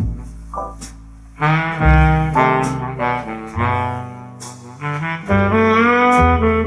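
Jazz music with a horn melody over a bass line, played back through Tang Band W4-2142 4-inch full-range drivers in small bass-reflex cabinets.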